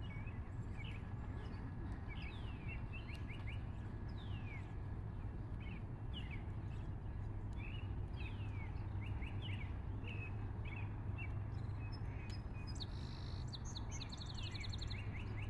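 Small birds chirping repeatedly with short, downward-sweeping calls over a steady low rumble, with a rapid high trill near the end.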